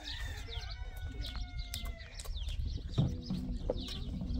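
Small birds chirping and tweeting repeatedly in short high calls, with a few sharp clicks. A lower call comes in about three seconds in.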